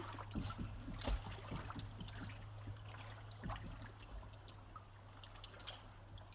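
Faint small waves lapping and gurgling against a concrete wall at the water's edge, with scattered soft splashes and a low steady hum underneath.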